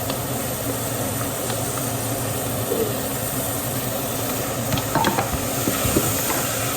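Pork, onion, green chillies and green peas sizzling as they fry in a pan, with a few short knocks about five to six seconds in.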